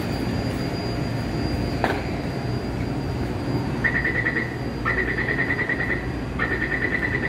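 Metro door-closing warning beeping: a high, rapidly pulsing beep in three bursts starting about four seconds in, warning that the doors of the stopped C371 train and the platform screen doors are about to close. Under it runs the steady rumble of the standing train and the underground platform.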